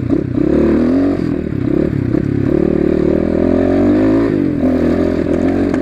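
Asian Beast 250 cc dirt bike's engine running loud while being ridden, its note rising and falling with the throttle; it dips about four seconds in and climbs again.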